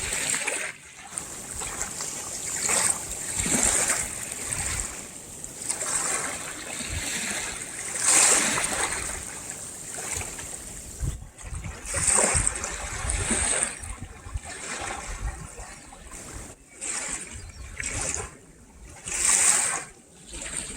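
Small waves lapping and washing at the shoreline, the hiss of water swelling and fading irregularly every one to four seconds.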